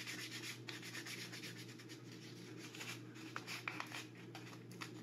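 Hand sanding: a tiny wooden part rubbed by hand against a folded sheet of sandpaper to smooth uneven wood, giving faint, irregular scratching strokes with a few sharper ticks partway through.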